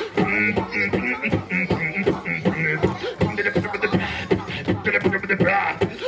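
Beatboxing into a handheld microphone: a fast, rhythmic run of mouth-made drum sounds mixed with short hummed tones.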